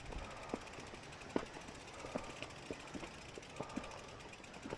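Faint ticking of a bicycle's rear-hub freewheel as the bike is pushed uphill on foot, with the pedals still, mixed with scattered irregular clicks of steps and stones on the dirt track.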